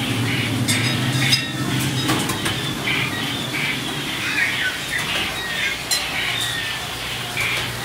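Dark ride show audio: a run of short, chirpy squawk-like sound effects with a few sharp clicks, over a low steady hum.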